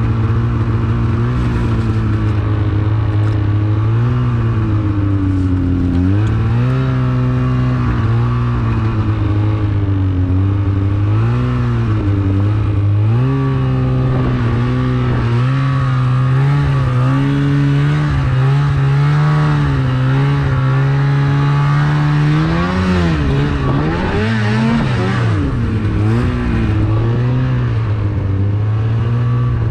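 Widetrack snowmobile engine running under way, its pitch stepping up and down as the throttle is eased on and off. About two-thirds of the way in the revs dip and climb several times in quick succession.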